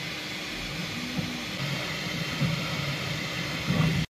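Bambu Lab X1-Carbon 3D printer running a print: a steady fan whoosh with uneven low whirring surges from the stepper motors as the toolhead moves. The sound cuts off suddenly just before the end.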